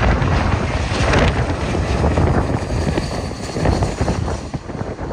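Rumble of an Airbus A320's jet engines mixed with gusty wind buffeting the microphone.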